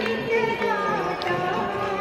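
Devotional aarti hymn sung with musical accompaniment: a voice holding long notes that glide slowly up and down.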